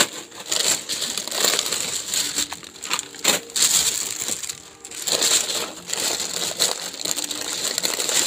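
Thin plastic shopping bag rustling and crinkling as a hand rummages inside it, with foil snack packets crackling against each other. It comes in bursts with short pauses.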